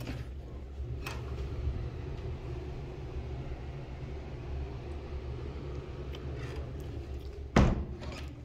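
Steady low hum of room ventilation machinery, with one sharp knock about seven and a half seconds in.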